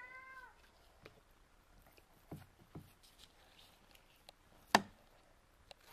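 A cat's short meow at the start, then scattered light knocks and taps, with one sharp knock about three-quarters of the way through.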